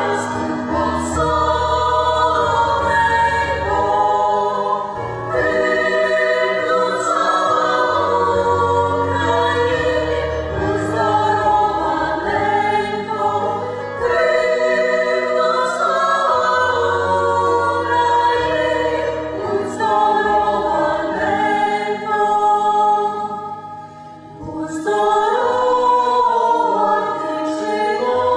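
A mixed ensemble of men's and women's voices singing a Ukrainian folk-style song together in several parts, held notes moving in phrases, with a short break for breath about four seconds before the end.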